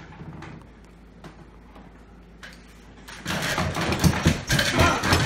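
A plastic pitcher of iced tea is lifted with a few light knocks. From about three seconds in comes loud, irregular sloshing and gulping as it is drunk straight from the pitcher.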